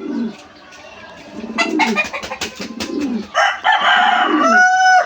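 Pigeons cooing low and repeatedly, with a loud rooster crow from about three seconds in that ends on a held note. A quick run of sharp beats comes just before the crow.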